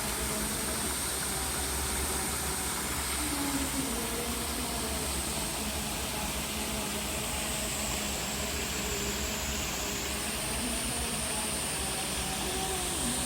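Mountain stream water rushing steadily, with a thin, steady high-pitched whine above it.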